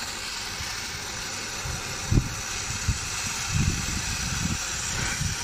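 MAPP gas brazing torch burning with a steady hiss while it heats the brazed copper pipe joints on an air-conditioner compressor to melt them free, with a few short low thuds, the loudest about two seconds in.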